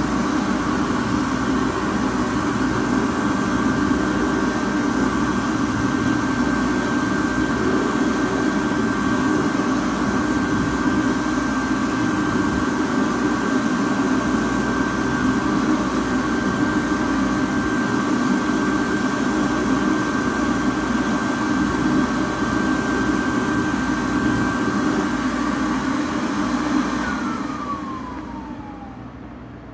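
Excel Dryer Hands On hand dryer running, a steady rush of air with a high motor whine. Near the end it shuts off and the whine falls in pitch as the motor spins down.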